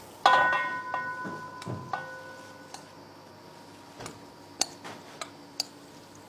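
A metal utensil strikes a steel cooking pot, which rings with a bell-like tone that fades over about two seconds. Light metallic clicks and taps follow every half second or so.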